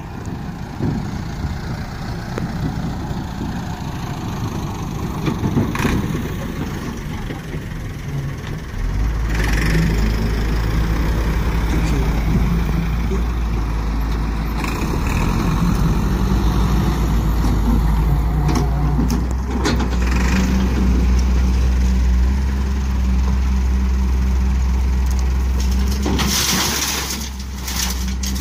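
Diesel engines of a Hyundai wheeled hydraulic excavator and a farm tractor running close by, with a deep steady drone that sets in about nine seconds in. Near the end comes a brief rush as a bucketful of soil is dumped into the tractor's trolley.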